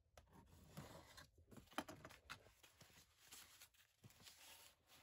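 Faint scraping and rustling with a few light taps: a utility knife slitting packing tape on a cardboard box and the box being handled, the sharpest tap about two seconds in.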